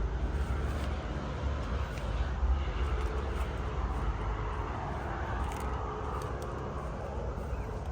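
Outdoor ambience: a steady low rumble with the hum of distant road traffic.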